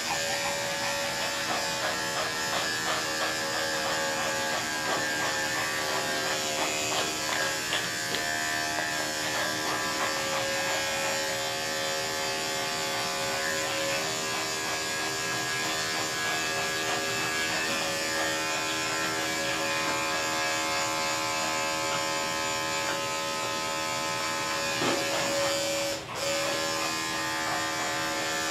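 Andis 5-speed electric dog clippers with a 10 blade running with a steady hum, shaving a dog's matted coat down close to the skin. About 26 s in the hum drops out for a moment and then resumes.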